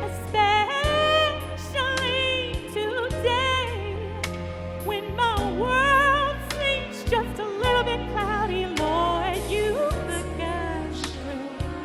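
Slow Christian pop song: a melody line with heavy vibrato and quick runs over bass and drum hits.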